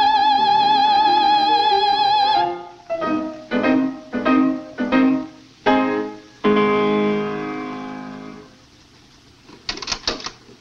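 A woman's voice holding a high sung note with a wide, fast vibrato, the tone-deaf student's singing, which stops about two and a half seconds in. A piano then plays a string of separate chords, the last one left ringing until it fades, and a few faint knocks come near the end.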